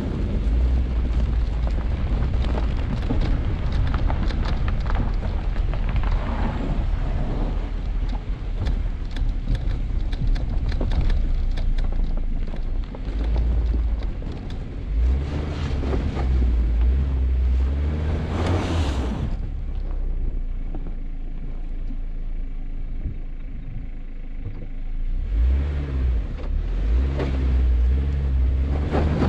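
Vehicle driving through loose sand on Falken Wildpeak AT Trail tyres: a steady low rumble with the engine surging louder near the middle and again near the end. Many short sharp ticks come in the first half.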